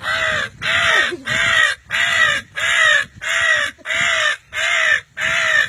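A man imitating a crow's caw with his voice, a fast run of about ten loud, harsh caws at roughly two a second, given as a call to bring crows in.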